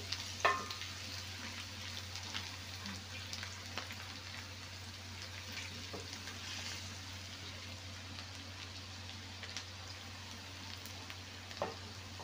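Minced garlic sizzling in melted butter in a stainless steel pot, stirred with a wooden spoon. There is one sharp knock about half a second in, with small ticks scattered through.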